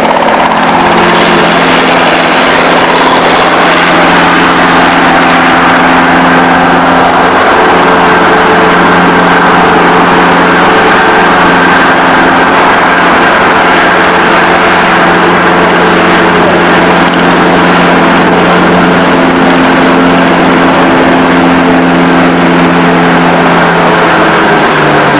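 An engine running steadily and loudly, a constant mechanical drone whose pitch shifts slightly a few times.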